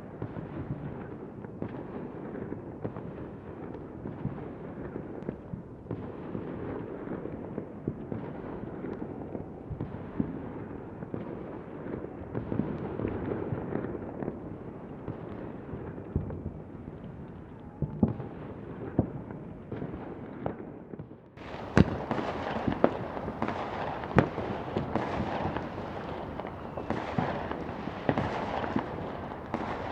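Distant battle gunfire: a dense, continuous crackle of shots with occasional heavier reports. The first part sounds dull. About two-thirds of the way through it switches abruptly to a brighter, sharper stretch of louder shots.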